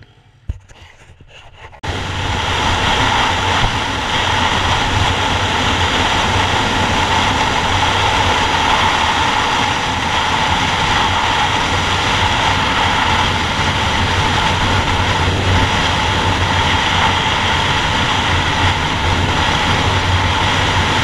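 Yamaha MT-03's parallel-twin engine running steadily at highway cruising speed under heavy, even wind rush over the rider's camera. The sound starts abruptly about two seconds in, after a short quiet stretch with a single click.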